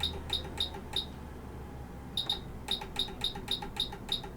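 Short high electronic beeps from a rework station's temperature buttons being pressed to set it to 400 degrees: four beeps, a pause, then a quicker run of beeps. A low steady hum underneath.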